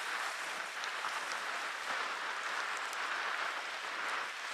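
Steady wash of wind and choppy waves on open lake water, an even hiss with no single loud event.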